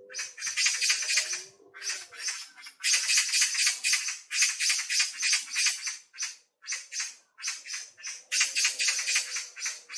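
Songbirds singing in fast, rattling chattering trills. The trills come in bursts of about a second, with short gaps between them.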